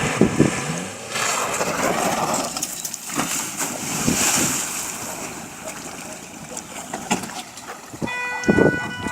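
Road and wind noise from cars driving, picked up by dash cameras. About a second before the end, a steady multi-pitched tone sets in.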